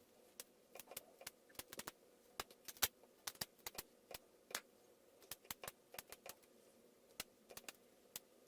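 Irregular light clicks and taps of small hard parts being handled and set down, several a second, over a faint steady room hum.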